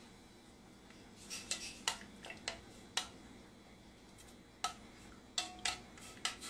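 A dozen or so irregular, sharp light clicks and clinks starting about a second in, a few of them with a brief ringing tone.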